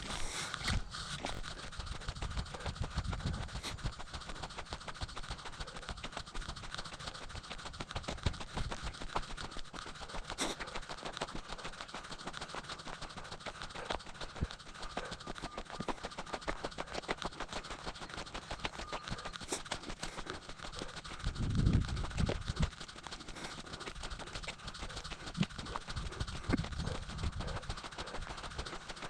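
Footsteps on a dirt hiking trail: a steady run of short scuffs and crunches, with two low rumbles in the second half.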